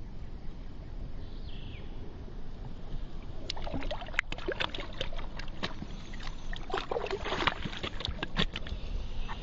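Hands splashing and rinsing in shallow river water: a low steady background at first, then from about three and a half seconds in a quick, uneven run of small splashes.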